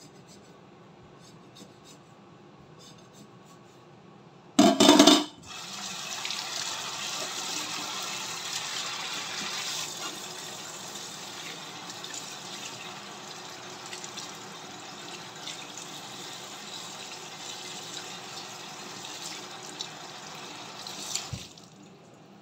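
Kitchen tap running into a stainless steel sink, water splashing over a whole fish as it is rinsed by hand. There is a brief loud burst about four and a half seconds in. The water then runs steadily and stops shortly before the end; before it, only faint handling clicks.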